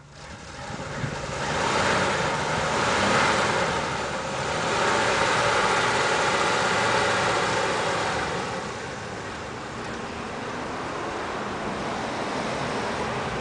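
1967 Chevrolet Camaro driving slowly with its engine running in gear through the original factory four-speed manual. The sound swells and eases a couple of times as the car moves.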